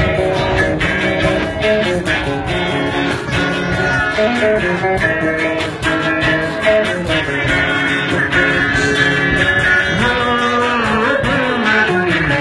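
Live band playing a song, guitar to the fore over a drum kit's beat, with pitch slides near the end.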